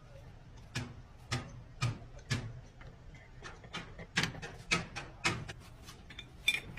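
A series of sharp knocks or taps, about two a second at first, then quicker and more irregular from about four seconds in, over a low steady hum.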